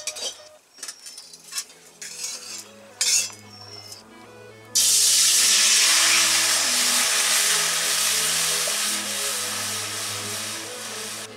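A metal spatula scraping and clinking in an aluminium wok. About five seconds in, water poured into the hot wok sets off a loud hiss and sizzle that slowly fades. Soft background music runs underneath.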